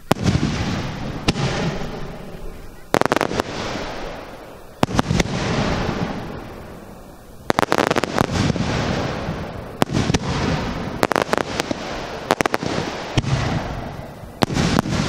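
Aerial firework shells bursting one after another, several loud bangs each followed by a long rolling echo that fades over a second or two. Between and after the bangs come bursts of rapid crackling from the glittering stars.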